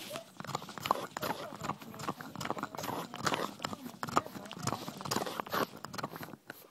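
A pug gnawing and chewing on a large bone: irregular clicks, knocks and scrapes of teeth on bone.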